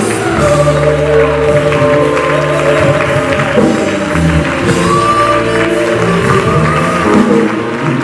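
Live gospel worship song: a woman sings lead into a microphone over a band with bass and keyboard, with backing singers.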